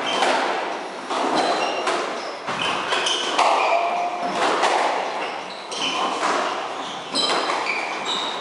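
Squash rally: the ball struck by rackets and smacking off the walls about once a second, each hit ringing in the court. Short high squeaks of sports shoes on the wooden floor come between the hits.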